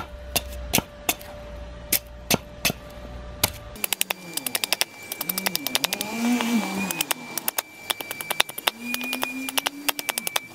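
Small hatchet chopping and prying bark off an ironbark log standing on a stump: sharp knocks of the blade biting bark and wood, spaced out at first, then a rapid run of strikes from about four seconds in. A faint wavering low tone runs under the second half.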